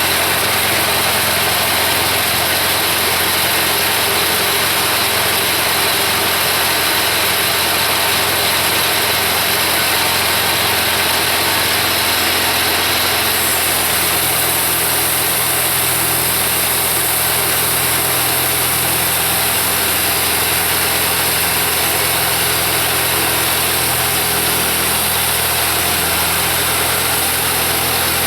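Kubota V1305 four-cylinder diesel engine on a sawmill running steadily. Its tone shifts about halfway through.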